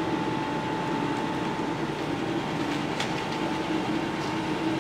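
Colchester Triumph 2000 centre lathe running at a low spindle speed: a steady hum and rattle of its geared headstock and feed gears, with a faint steady whine.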